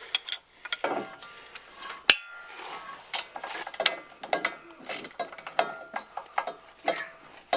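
Hand ratchet clicking in short, irregular runs as the driveshaft flange bolts are worked loose, with one sharper metallic click about two seconds in.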